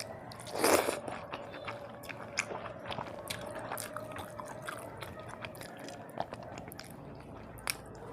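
Close-miked eating: a person chewing with small wet mouth clicks, and one louder crunchy bite just under a second in.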